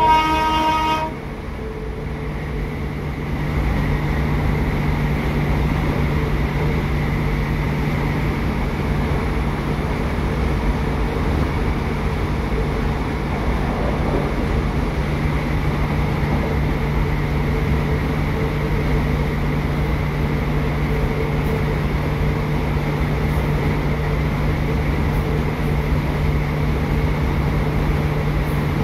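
A Class 150 Sprinter diesel multiple unit heard from inside the carriage. A short horn note sounds at the very start, then the underfloor Cummins turbo-diesel engine and the running gear drone steadily as the train runs. The drone steps up in level about three seconds in and then holds.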